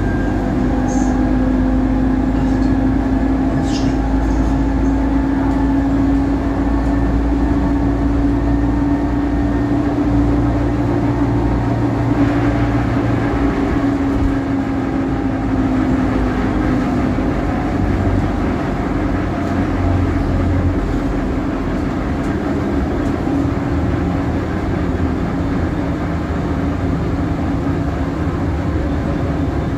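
Tatra T6A2 tram running, heard from inside the car: a steady rumble with a whine that slowly drops in pitch and fades out about halfway through.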